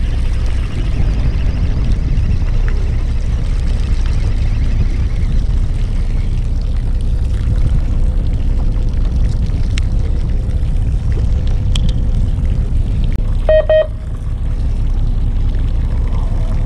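Fishing boat's engine running with a steady low rumble. A short electronic beep sounds once, a few seconds before the end.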